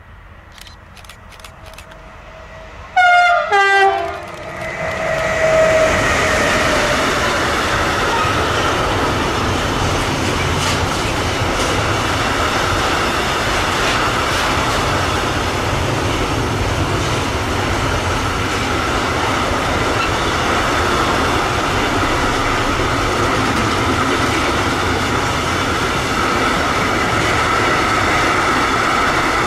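A train sounds two short horn blasts about three seconds in, then passes close by: a loud, steady rumble of wheels on the rails with a ringing wheel tone that lasts to the end.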